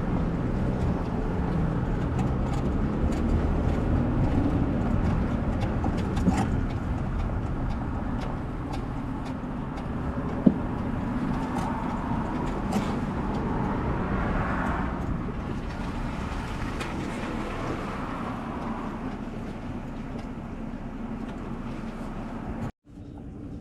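Car driving on the road, heard from inside the cabin: steady engine and tyre noise with a few light clicks. It cuts off suddenly near the end.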